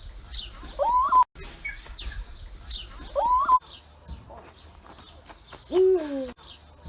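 European eagle owl hooting: one deep call that falls in pitch near the end, after two higher calls that rise and level off about a second in and about three seconds in. Small birds chirp faintly throughout.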